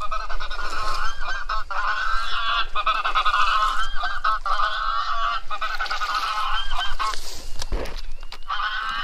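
Dense chorus of many geese honking, played from an electronic goose caller. The calls cut off sharply about seven seconds in and start again near the end, with a brief low thump in the gap.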